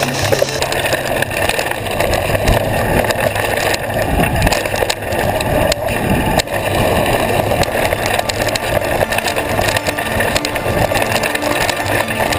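Downhill mountain bike ridden fast over a dirt and gravel trail, heard from a bar-mounted camera: steady wind and tyre noise with frequent clatter and knocks from the bike over bumps.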